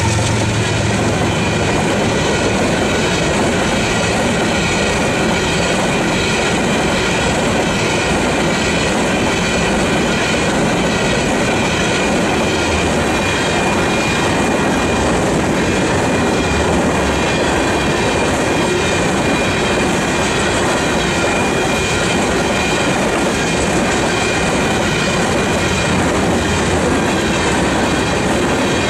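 Freight cars rolling steadily past on steel wheels over the rails, with a continuous loud rumble and clatter and a faint, steady high-pitched wheel squeal.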